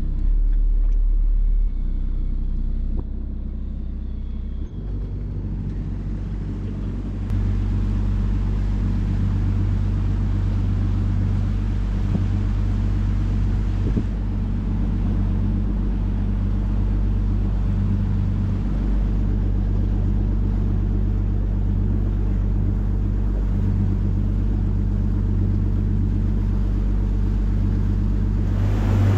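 The boat's single inboard diesel engine running steadily with a low rumble as the Albin 28TE moves through calm water. The sound jumps abruptly in level and tone several times in the first few seconds, then holds steady.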